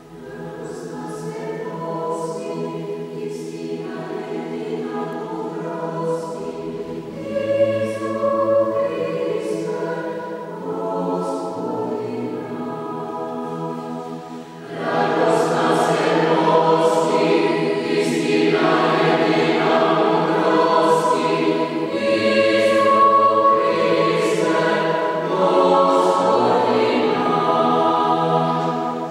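Church choir singing in held chords, growing markedly louder about halfway through.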